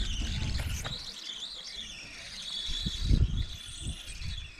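Wind buffeting the microphone in uneven gusts during a ride down a suspended rail, with a faint high wavering whine behind it.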